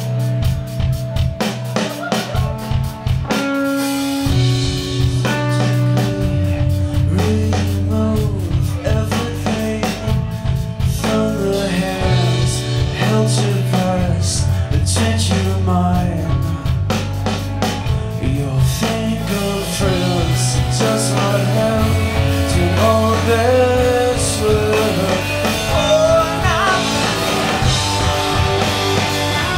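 Live emo rock band playing a song loudly: electric guitars and a drum kit, with a male singer singing into the microphone.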